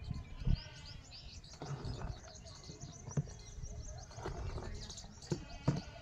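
Small birds chirping repeatedly, over the soft slosh of a hand stirring fresh frothy milk in a steel bucket, with a couple of dull knocks about half a second in and near the end.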